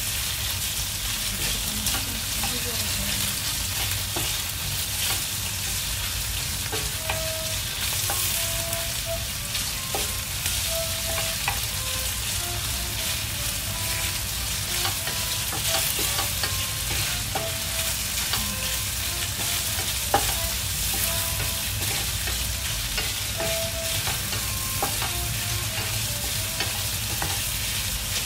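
Sliced meat and chopped garlic sizzling steadily in hot oil in a frying pan, stirred and turned with a wooden spatula that scrapes and taps against the pan again and again.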